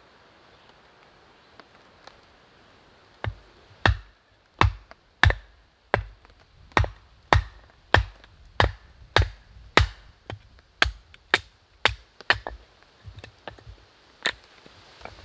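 Firewood being chopped or split by hand: a steady run of sharp wooden blows, a little under two a second, starting about three seconds in, then thinning to a few lighter knocks near the end.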